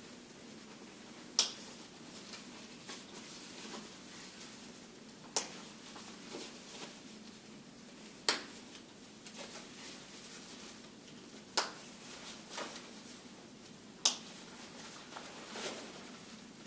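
Press-stud snaps on a rain jacket being fastened one by one up the front: five sharp clicks a few seconds apart, with soft rustling of the jacket between them.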